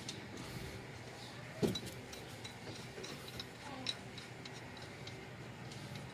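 Scattered light metallic clicks and taps of bolts and hand tools being handled while the bolts go back into the lower engine mount, with a sharper knock about one and a half seconds in and another near four seconds, over a faint steady hum.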